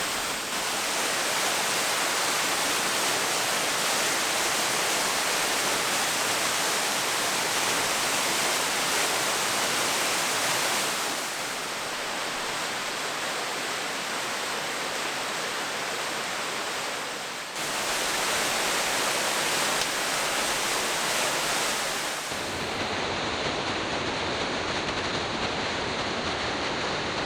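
Steady rushing of a waterfall, a dense even roar of falling water that shifts abruptly in level and tone about 11, 17 and 22 seconds in.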